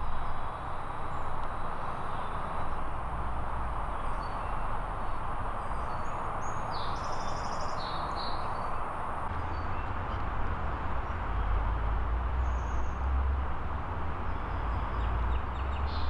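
Steady rushing outdoor background noise with a low, uneven rumble, and a few faint bird chirps about seven seconds in and again near the end.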